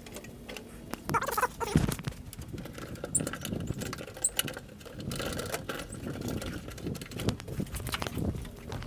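Irregular rustling, scraping and clicking of a plastic air line being handled and fed under a car's underbody, with a louder knock about two seconds in.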